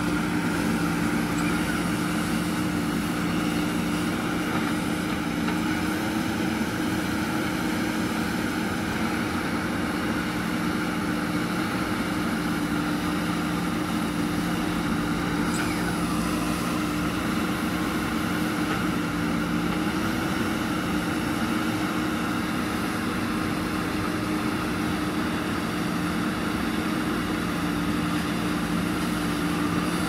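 JCB 3DX backhoe loader's diesel engine running steadily at a constant pitch while the backhoe digs in the riverbed.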